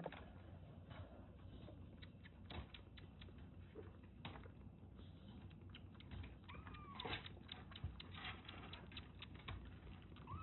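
Tabby kitten suckling milk from a nursing bottle: quiet, rapid wet clicking of its mouth on the nipple as it drinks in quick small sips, with a single short mew about seven seconds in.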